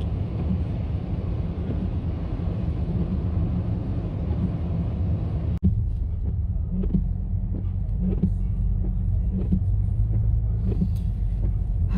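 Car road noise heard from inside the cabin: a steady low rumble. About halfway through it breaks off sharply, then carries on with scattered light knocks over the rumble.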